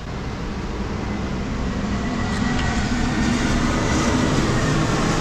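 Steady low engine rumble with a faint hum. It swells over the first couple of seconds, then holds.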